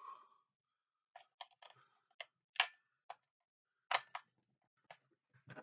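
Batteries being handled and fitted into a toy RC unit's battery compartment: a scatter of short, sharp clicks and taps starting about a second in.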